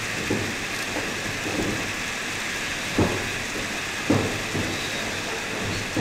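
Wrestlers' strikes landing in the ring: four short sharp impacts, the loudest about three and four seconds in, over a steady hiss of hall noise.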